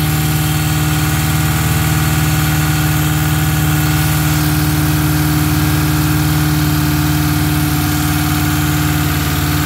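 Turbocharged Suzuki GTi 1.3 L twin-cam four-cylinder in a Geo Metro, built with forged pistons and H-beam rods, idling steadily and smoothly just after its first start following the build.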